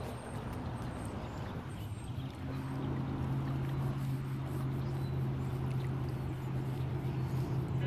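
Motorboat engine on the river, a steady low drone that comes in about two and a half seconds in and grows a little louder.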